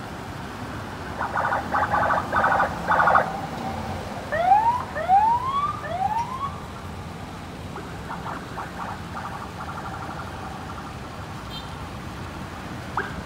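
Electronic vehicle siren over steady road-traffic noise. It gives about two seconds of rapid pulsing tones, then three short rising whoops, then fainter pulsing again.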